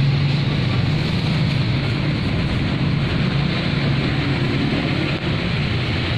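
A steady low mechanical hum with hiss, running without a break, like an engine or machine idling.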